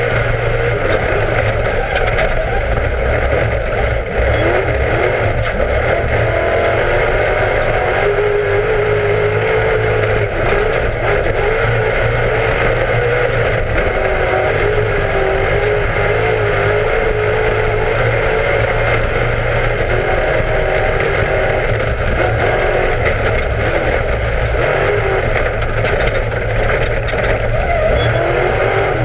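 Class 1 off-road desert race car's engine running hard, its pitch rising and falling continually as the revs change, over a steady rushing noise.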